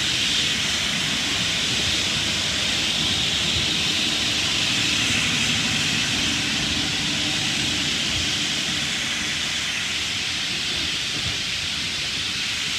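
XPT passenger carriages rolling slowly past on the rails: a steady low rumble of wheels on track under a strong hiss, easing slightly near the end as the train draws away.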